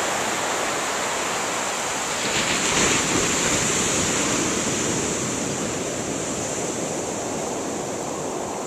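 Ocean surf washing up over a flat sand beach: a steady wash that swells with an incoming wave about two seconds in, then slowly eases off as it recedes.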